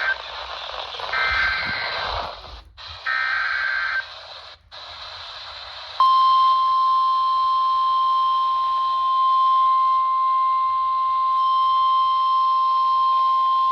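Emergency Alert System header heard through a weather radio's speaker over static: the screeching digital data bursts of the SAME header that encode the flood warning, two of them about a second each. About six seconds in, the steady single-pitch NOAA Weather Radio warning alarm tone starts and holds.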